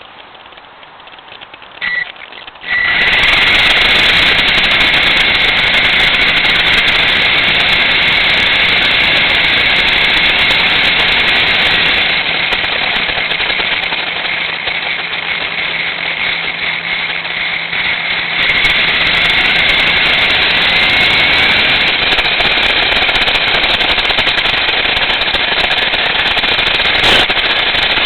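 Radio-controlled car driving, heard through a mini camera mounted on the car: loud motor and drivetrain noise with a high whine running through it, starting suddenly about three seconds in, easing off somewhat in the middle and picking up again.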